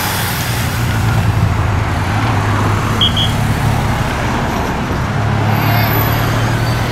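Support cars and escort motorcycles passing close one after another: steady engine hum with tyre and road rush. Two short high beeps sound about three seconds in.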